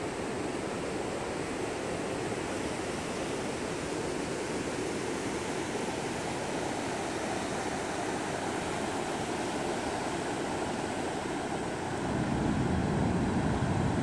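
Ocean surf breaking on a sandy beach: a steady wash of noise, with a louder low rumble coming in about two seconds before the end.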